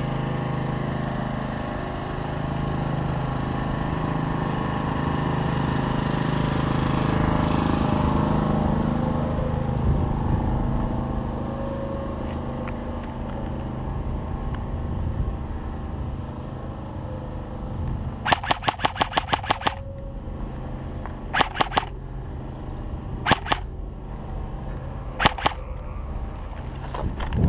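Airsoft electric AR-15 replica rifle firing: a full-auto burst of about a dozen rapid snapping shots, then several short bursts of one to three shots about two seconds apart. Before the shooting, a steady drone fades away over the first ten seconds or so.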